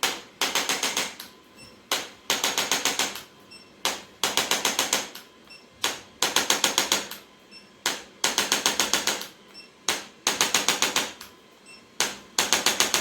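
A handheld chiropractic percussion instrument tapping rapidly in bursts. There are about seven bursts, each of six to ten quick taps lasting around a second, coming every two seconds or so.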